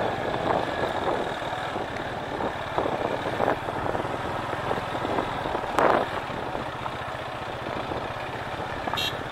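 Motorcycle engine running steadily while riding on a rough dirt road, with tyre and road noise and a brief knock about six seconds in.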